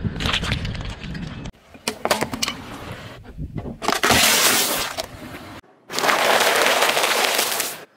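Car tyre rolling over and crushing food in three quick edited takes: cherry tomatoes squashing and popping, then a Pringles can crunching with the chips inside, then a pile of puffed snacks crackling. The crunching of the can and the snacks is the loudest.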